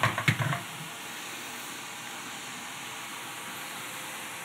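A Gigabyte RTX 3060 Ti Eagle graphics card set down on a desk: a few light knocks in the first half second, then a steady background hiss.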